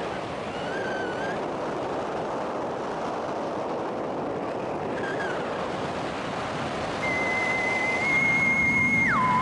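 Wind rushing over the microphone of a camera on a paraglider in flight. About seven seconds in, a sustained, slightly wavering tone comes in over it and drops to a lower pitch near the end.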